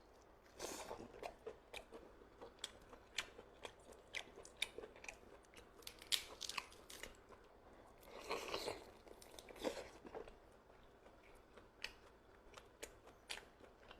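Close-up eating sounds: a person chewing and biting food, with many short sharp clicks and two longer moist, noisy stretches, one about a second in and one near the end.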